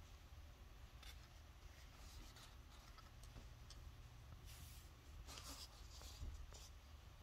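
Near silence, broken by a few faint scrapes and rustles as the plastic diffuser base and its red cover are handled and set down.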